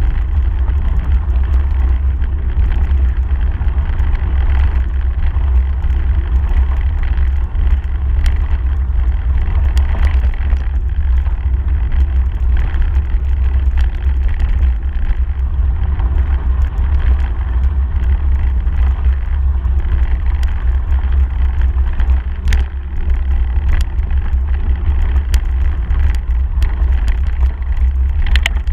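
Bicycle riding over a gravel track: knobby tyres crunching on loose gravel, with many small clicks and rattles from the bike, all under a steady heavy low rumble of wind on the mounted camera's microphone.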